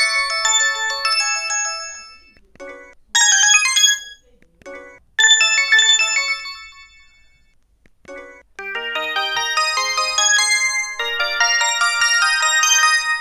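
Samsung SGH-E250 mobile phone ringtones playing one after another: short electronic polyphonic melodies. One tune fades out about two seconds in, a few brief chimes follow, and a new, busier tune starts at about eight and a half seconds.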